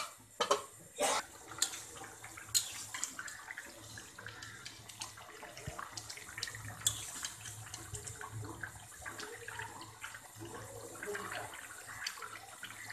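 A metal lid clanks down on the pot a couple of times near the start. Then thick fish curry bubbles and spatters at a steady boil in a metal karahi.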